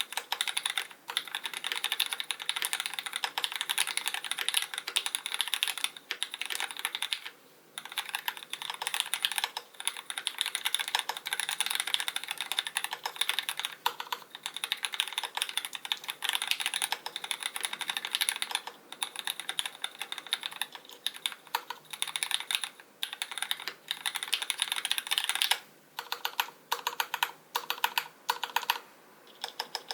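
Fast, steady typing on a custom Canoe Gen.2 mechanical keyboard with lubed linear Cherry MX Black (Hyperglide) switches, GMK keycaps and an aluminium plate. It breaks off briefly about seven seconds in, and near the end it thins out into slower, separate keystrokes.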